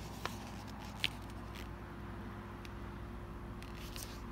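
Pages of a book being handled and turned: a few light paper ticks, the sharpest about a second in, and a short rustle near the end, over a steady low hum.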